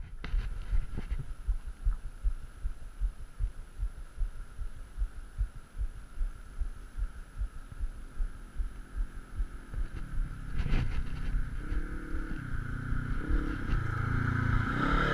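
Irregular low buffeting on the microphone, then from about ten seconds in a Polaris RZR XP 4 900 side-by-side's twin-cylinder engine approaching. It gets louder, its pitch rising and falling with the throttle.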